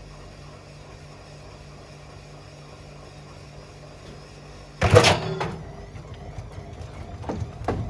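Whirlpool washing machine running with a steady hum, then a sudden loud bang about five seconds in as the 6-litre water bottle inside is thrown against the drum, followed by more knocks that turn into a rough repeating beat near the end.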